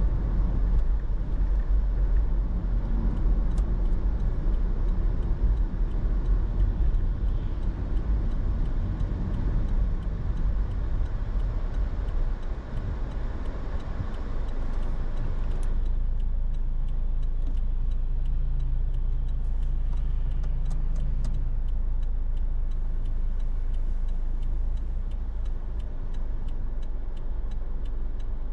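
Car driving on city streets: steady engine and tyre rumble. The higher road noise drops away about halfway through as it slows, and a regular ticking runs through the second half.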